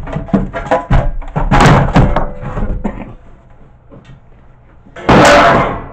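A General Electric VCR's plastic-and-metal casing knocking and clattering as it is handled and laid flat on a workbench, with one loud knock about five seconds in.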